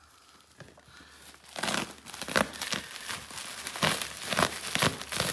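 Plastic packing wrap crinkling and tearing as hands pull it open inside a cardboard box. Irregular crackles that start about a second and a half in and go on unevenly.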